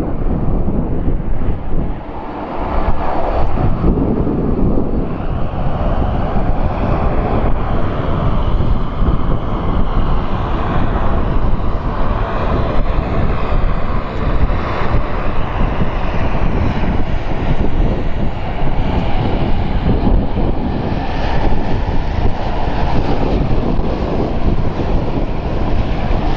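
Airbus A330-200's twin Pratt & Whitney PW4170 turbofan engines running steadily at taxi power as the airliner taxis away, with wind buffeting the microphone.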